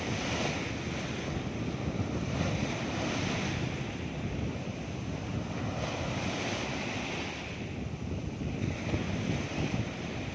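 Small waves breaking and washing up a sandy beach, the hiss of the wash swelling and fading every few seconds, with wind buffeting the microphone.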